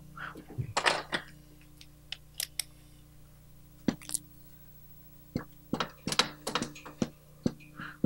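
Dry-erase marker writing on a whiteboard: a run of short squeaks and taps in the last few seconds, after a few scattered clicks and knocks near the start, over a faint steady hum.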